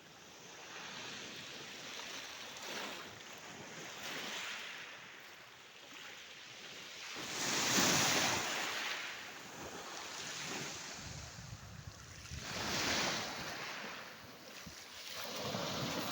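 Sea waves washing onto the shore, the surf swelling and falling back every few seconds, with the loudest surge about halfway through.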